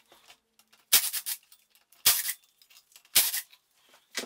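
Three short bursts of sharp metallic clicking and rattling, about a second apart, from tools at work on the timing-belt end of a VW 1.9 diesel engine while its belt and pulleys are taken off.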